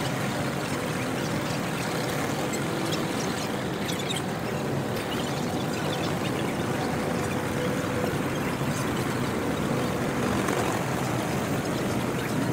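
Steady outdoor noise of distant road traffic, with a faint steady hum through most of it and a few small ticks.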